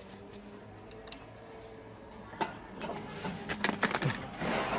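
A few light metallic clicks and knocks in quick succession, from hands and parts working at the car's gearbox, after a couple of quiet seconds; a rushing hiss builds up near the end.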